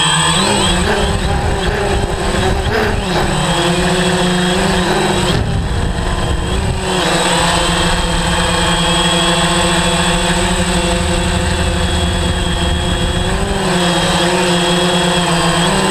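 DJI Phantom 3 quadcopter's motors and propellers buzzing in flight, the pitch bending up and down as the drone manoeuvres and holding steady for several seconds in the middle.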